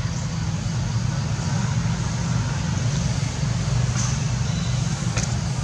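Steady low rumble of background noise, with a couple of faint clicks in the last second and a half.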